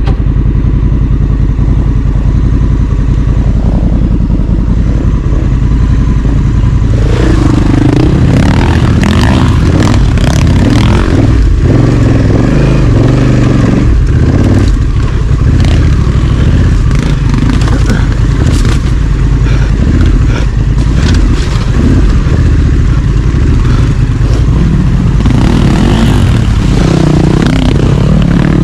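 Honda Africa Twin CRF1100 DCT's 1084 cc parallel-twin engine running while the bike is ridden off road. From about seven seconds in, frequent knocks and clatter from the bike working over rough ground.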